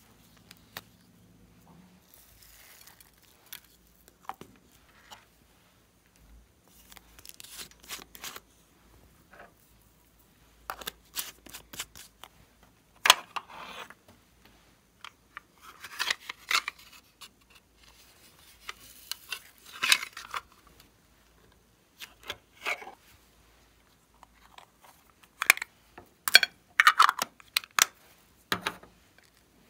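Small plastic containers clicking open and glitter, sequins and beads being shaken and poured into a glass bowl of slime ingredients: irregular clicks and rattles with short pouring hisses of a second or so.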